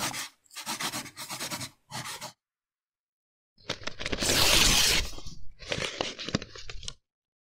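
Paper sound effects: a few short crinkling rustles, then after a brief pause a longer, louder rip of paper tearing.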